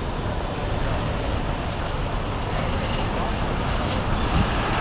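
Steady city street traffic noise with wind on the microphone, growing a little louder near the end as a box truck drives past close by.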